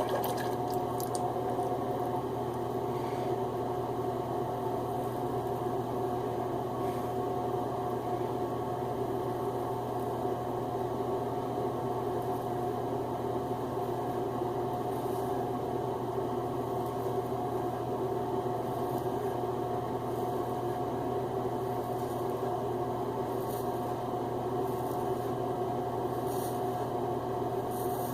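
A steady machine hum with one constant tone. Faint, brief scrapes of a double-edge safety razor on a lathered scalp come now and then, mostly in the second half.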